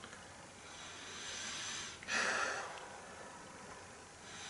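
A person sniffing a glass of beer through the nose to take in its aroma: a long drawn breath, then a sharper, louder sniff about two seconds in.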